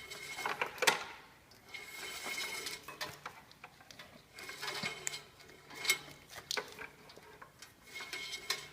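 Irregular clicks, light rattles and scrapes of hand work on metal parts and wiring, with no steady rhythm.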